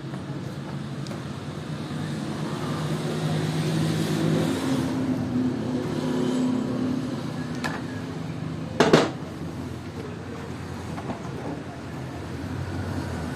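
Motorcycle engine running, its pitch rising for a while around four seconds in and then settling, with one sharp metallic clank about nine seconds in.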